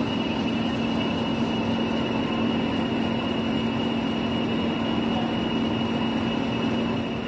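English Electric Class 40 diesel locomotive D345 idling, its 16-cylinder engine giving a steady hum with a steady high whistle over it, the turbocharger whistle the class is known for.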